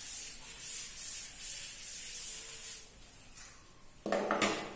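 Board duster rubbed back and forth across a chalkboard to erase it, a scratchy hiss in quick strokes about two or three a second that stops about three seconds in. About a second later comes a short, louder thump.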